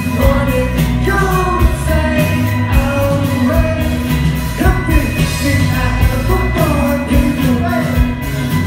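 Live band playing a pop-rock song: a male voice singing into the microphone over electric guitar, bass and a steady drum beat, heard from within the audience.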